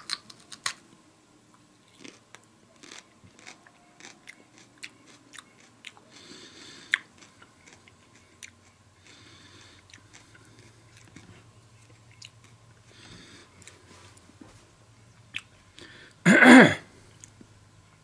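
A person biting into and chewing a raw Bishop's crown pepper, with many small wet, crunchy clicks scattered throughout. Near the end comes one short, loud vocal sound from the throat.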